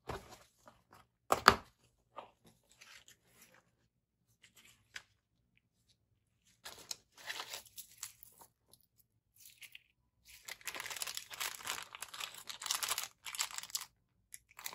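Kit packaging being opened by hand: a sharp knock about a second and a half in, then wrapping being torn and crinkled, the longest stretch near the end.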